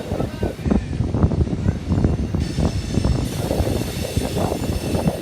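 BNSF grain train rolling past: a steady low rumble with frequent irregular clacks and knocks from the wheels on the rail.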